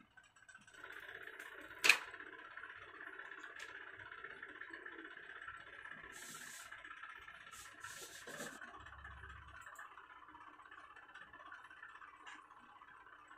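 Small handling sounds from fitting a tempered-glass screen protector to a smartphone on a desk: one sharp click about two seconds in, a few lighter ticks, brief scrapes and rustles around the middle, and a dull thud. All of this sits over a steady background whir.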